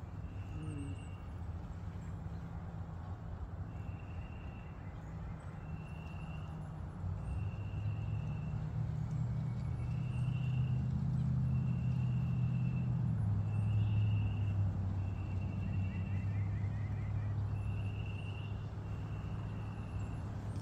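Low, steady hum of a vehicle engine, swelling about a third of the way in and staying louder, with a short high chirp repeating every second or two over it.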